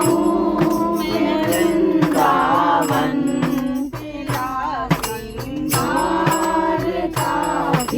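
A Hindi devotional bhajan sung by voice, held notes gliding up and down, with handheld percussion striking a steady beat.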